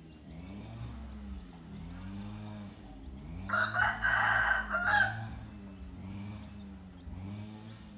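A rooster crows once, a loud call about a second and a half long, starting about three and a half seconds in.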